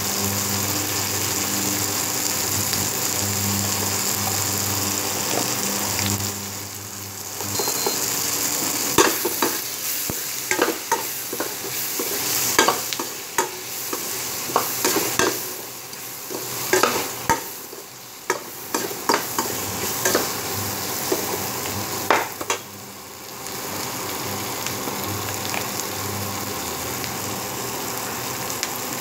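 Sliced onions and tomatoes sizzling as they fry in oil in a metal kadai. From about eight seconds in until about twenty-two seconds, a metal spatula scrapes and clinks against the pan as the salt and turmeric are stirred into the frying onions.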